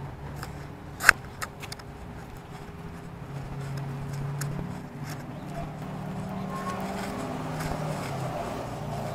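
Handling and footstep noise from a body-worn camera as its wearer walks: a cluster of sharp clicks and taps about a second in, one of them the loudest sound, over a steady low hum of street traffic that grows a little louder after about three seconds.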